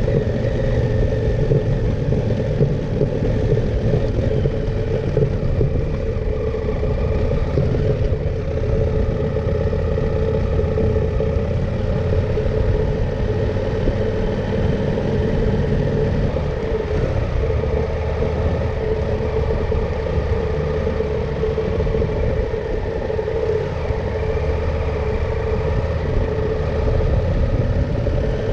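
KTM 890 Adventure R motorcycle's parallel-twin engine running steadily while under way, its note holding nearly level throughout.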